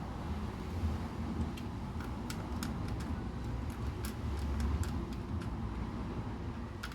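Small LEGO pieces being handled and pressed together, giving scattered light clicks over a steady low hum.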